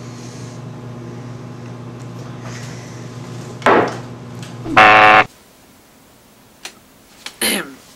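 A steady low electric hum or buzz, cut off sharply about five seconds in. A short vocal outburst comes near four seconds, then a loud harsh buzzing tone just before the hum stops. A few sharp knocks and a brief voice follow near the end.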